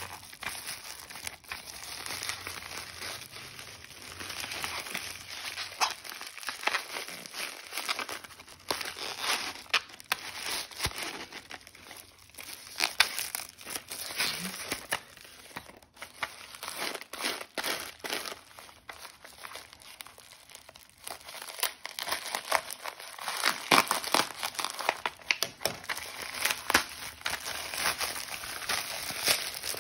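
A white plastic postal mailer and the clear plastic wrapping inside it being crumpled, pulled apart and torn by hand. The result is a continuous, irregular crinkling and crackling, busiest in the second half.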